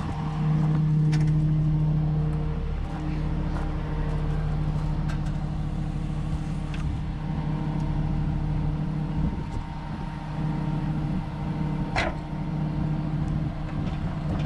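Steady engine drone, louder for about two seconds near the start, with a few light clicks and one sharp metallic knock near the end.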